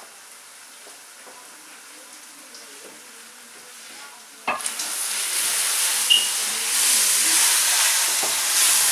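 Lamb pieces frying in oil in a steel karahi while being browned (bhuna): a faint sizzle at first, then about halfway through a knock as the spatula goes in, and a loud sizzle as the meat is stirred and turned.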